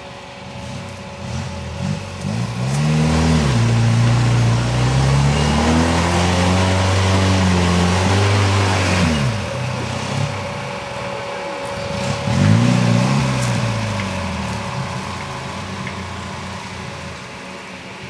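UAZ-469 off-roader's engine revving hard under load as it climbs a steep, rutted forest slope. The revs rise about two and a half seconds in, are held high, and drop away about halfway through, then rise again briefly a few seconds later.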